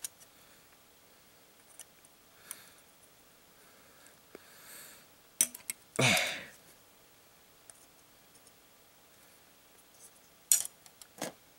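Hobby nippers snipping plastic model-kit parts off the runner: a few sharp clicks, two close together about five and a half seconds in and two more near the end, with a louder brief rasp about six seconds in.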